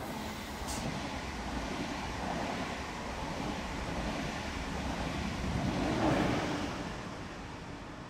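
ÖBB Railjet passenger train running past at speed, a steady rush of wheels on rails and air. It swells to its loudest about six seconds in, then fades as the train pulls away.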